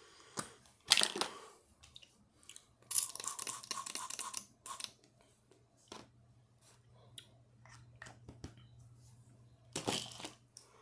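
Sore throat spray bottle being handled and used: clicks and crackly handling noise, with bursts of hiss about a second in, a longer one around three to four seconds in, and another near the end.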